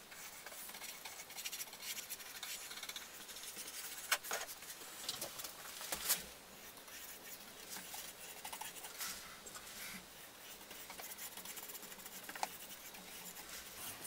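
Small paintbrush scratching softly along thin pine frame strips as decking oil is brushed on, with a few sharp ticks in between.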